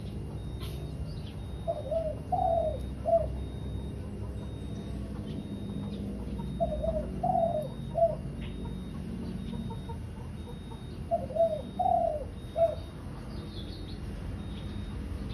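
Spotted dove (tekukur) cooing: a three-note coo phrase repeated three times, about every four and a half seconds, over a steady low rumble. This is the male's advertising call to females, used as a lure call for catching doves.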